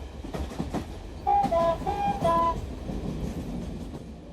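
Train sound effect: a steady clickety-clack of wheels on rail joints, with a short two-tone whistle toot of a few notes about a second and a half in.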